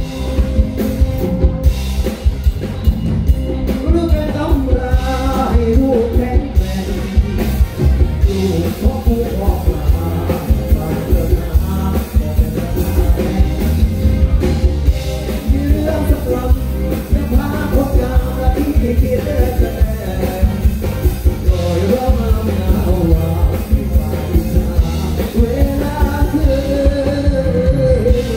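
Live rock band playing loud through a PA: a man singing into a microphone over electric guitars, keyboard and a steady drum beat.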